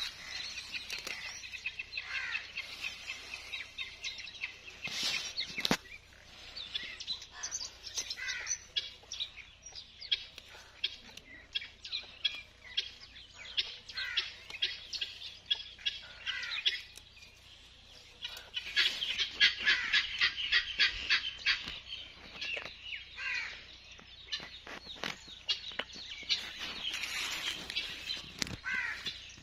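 Chickens and small birds calling: many short chirps and clucks, busiest about two-thirds of the way through.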